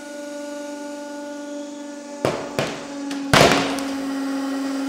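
150-ton hydraulic press humming steadily as its ram crushes a stack of paperback books. About two seconds in come two sharp cracks, then a loud bang as the books burst apart under the pressure.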